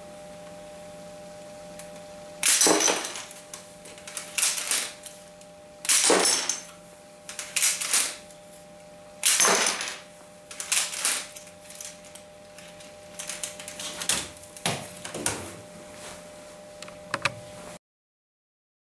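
A Lego-built toy gun firing, each shot a sharp snap followed by Lego bricks clattering onto a wooden tabletop as target towers are knocked over. Three loud shots come about three seconds apart, then a few lighter clicks, before the sound cuts out suddenly near the end.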